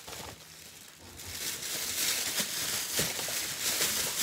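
Plastic carrier bag rustling and crinkling as rubbish is stuffed into it and it is handled, starting about a second in.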